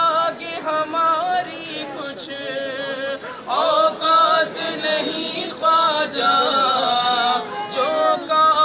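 Men's voices singing an unaccompanied Urdu devotional song in praise of Khwaja Moinuddin Chishti, with long held notes that bend and waver.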